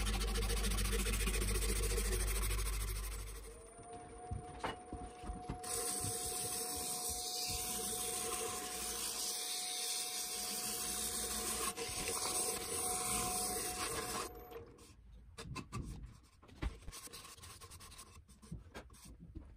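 A wood lathe runs with a steady whine while a hand rubs against the spinning spiked cherry vase, making a rubbing hiss. This stops about three-quarters of the way through, and quieter clicks and rubbing from handling the wooden spikes follow.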